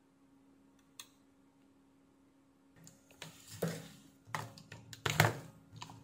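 Small hand tools being handled on a workbench: a light click about a second in, then a run of irregular clattering and rustling as the tweezers are set down and the soldering iron picked up, loudest near the end.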